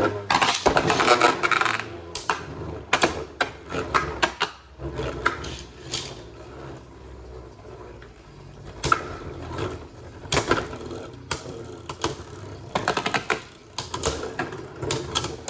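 Beyblade spinning tops clashing and skittering in a plastic stadium: rapid clattering hits, busiest in the first two seconds, thinning to a quieter spin in the middle, then more scattered collisions toward the end.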